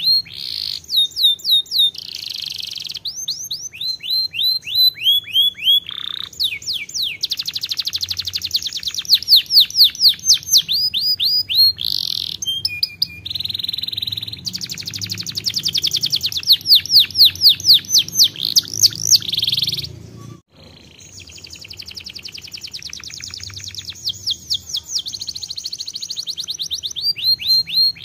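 Domestic canary singing: a long song of fast trills, each built from rapidly repeated falling notes, with a short break about two-thirds of the way through.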